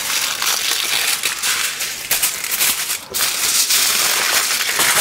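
Aluminium foil crinkling and crackling as a foil-wrapped package is wrapped by hand in a second sheet of foil, with a brief pause about three seconds in.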